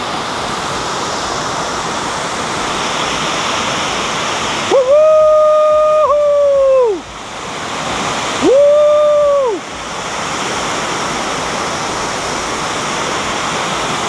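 Waterfall: water falling and rushing over rocks, a steady loud roar. Two long, level-pitched calls cut through it: one about five seconds in that lasts some two seconds, and a shorter one about three and a half seconds later.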